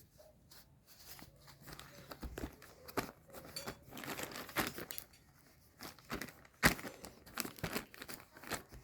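Packaging crinkling and rustling in irregular bursts as it is handled, with a sharp snap about two-thirds of the way through.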